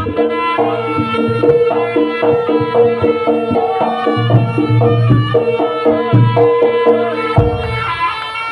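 Live East Javanese jaranan gamelan music: hand drums (kendang) keep a busy rhythm under a steady ringing tone and a shifting melody line.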